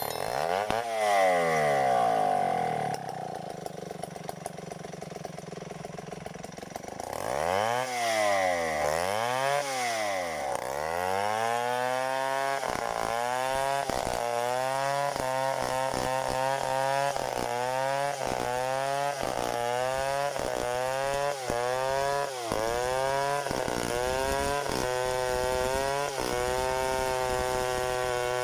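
Stihl 070 two-stroke chainsaw running, its engine speed swinging up and down several times. It is then revved in a quick series of short rises about once a second before settling into a steady high run near the end.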